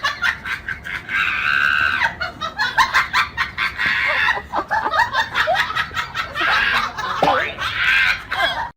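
A person laughing hard in high-pitched squeals and shrieks, three long squeals broken up by quick choppy bursts of laughter.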